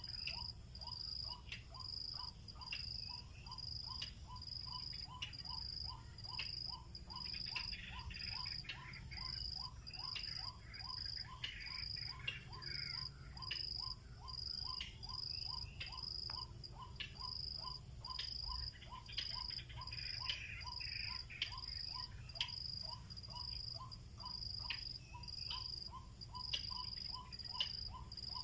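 Insects calling in steady repeating pulses, a high pulse about one and a half times a second and a lower one a little over twice a second, with scattered bird chirps.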